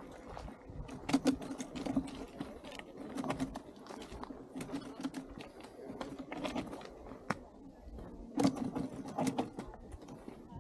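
Footsteps scuffing and crunching on a dirt and gravel hiking trail: irregular steps and knocks, louder around a second in and again near the end.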